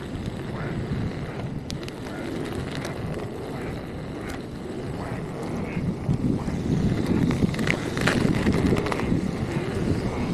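Wind buffeting the microphone over the rolling noise of an electric unicycle riding on wet pavement. It grows louder from about six seconds in.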